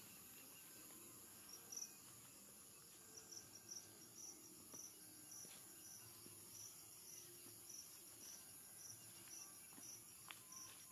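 Near-silent night ambience with a cricket chirping faintly in a steady rhythm, a little under two chirps a second.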